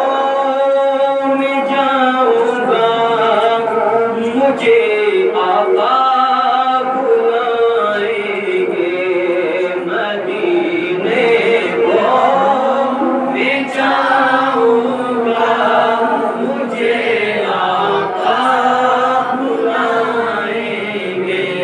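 A man singing an Urdu naat solo and unaccompanied, in long drawn-out phrases whose notes are held and slide up and down.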